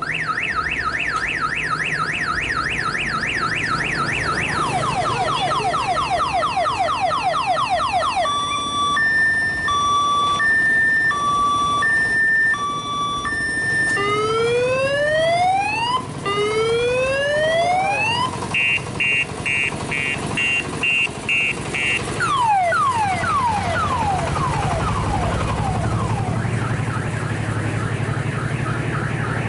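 Multi-tone electronic siren horn of an odong-odong tour train cycling through its patterns one after another: fast warbles, alternating two-tone beeps, rising whoops, rapid pulses and falling sweeps. Beneath it runs a low engine rumble that grows louder near the end.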